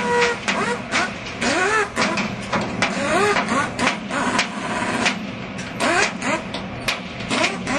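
Handheld power wrenches on the bolts of the steel panels of a Harvestore silo being dismantled: short repeated bursts whose pitch rises and falls, mixed with sharp metallic clicks and clanks.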